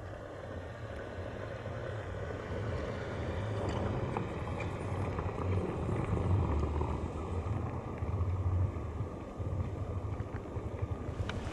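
A vehicle driving along a road: a steady, low engine and road rumble.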